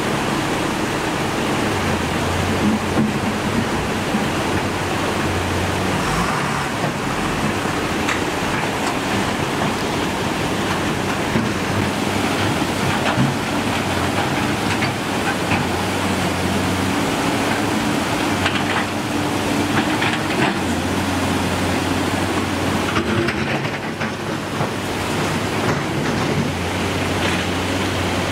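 Steady rush of a muddy flood torrent, with vehicle and excavator engines running under it; one engine's pitch rises a little about two-thirds of the way in, and there are a few sharp knocks.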